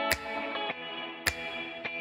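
Background music: held, pitched instrumental notes over a sharp percussive hit about once a second, twice here.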